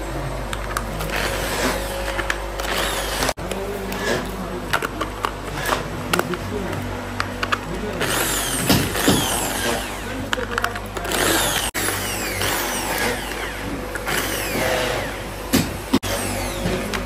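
Electric drill with a screwdriver bit running in short bursts, driving screws into a plastic tail-light housing. The whine falls off each time the trigger is let go, among clicks and knocks of parts being handled.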